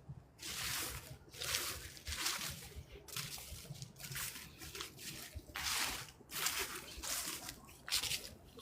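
Footsteps crunching through dry fallen leaves at a steady walking pace, about ten steps.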